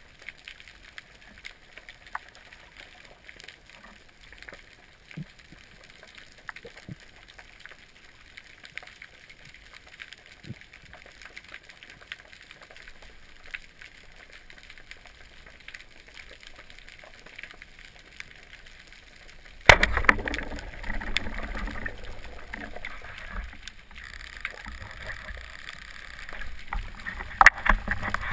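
Faint underwater ambience with scattered small clicks and crackles, then, about two-thirds of the way in, a sudden loud burst followed by rough, sloshing water noise as the spearfisher reaches the surface.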